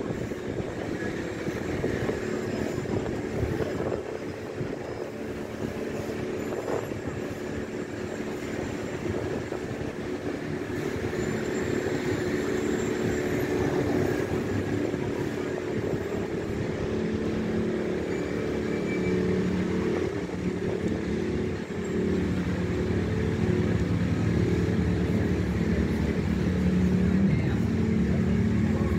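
City street traffic: a steady hum of vehicle engines and tyres, growing louder through the second half, with a steady low engine drone coming in about halfway through.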